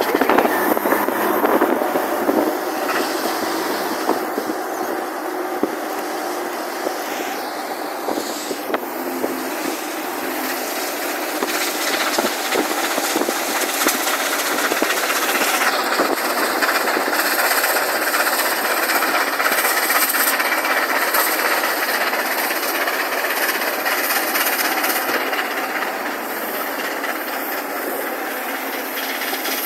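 Steady rushing road and wind noise of a car in motion, heard from inside the cabin.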